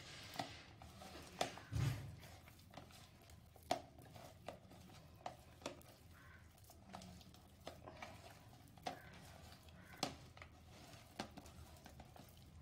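Hands squeezing and kneading a sticky mash of banana and cassava flour in a plastic tub: faint, irregular squelches and clicks, one or two a second.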